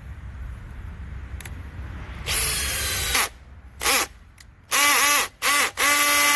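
Makita XPH07 brushless hammer drill driving a screw in several short trigger pulls starting about two seconds in, the motor pitch rising and falling with each pull before a longer steady run near the end. On clutch setting 5 the screw will not drive fully home.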